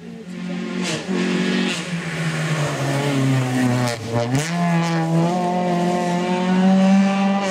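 Peugeot 206 rally car engine at high revs: the pitch falls as the car lifts and brakes for a bend about four seconds in, then climbs steadily as it accelerates away, with a few short sharp cracks in between.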